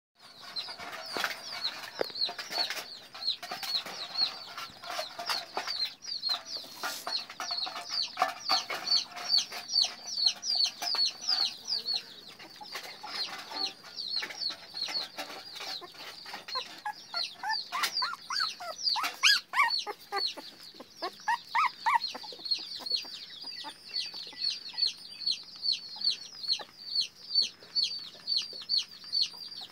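A young animal peeps continuously: short, high-pitched, falling peeps at about three a second. Around seventeen to twenty-two seconds in, a few lower whining squeals join them, and there are scattered light knocks from handling.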